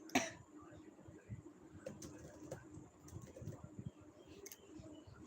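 A woman hiccups once just at the start, a single short burst. After that only faint scattered low sounds over a steady low hum.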